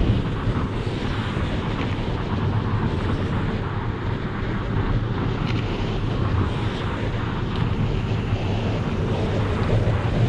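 Steady low engine rumble, unbroken, mixed with wind noise on the microphone.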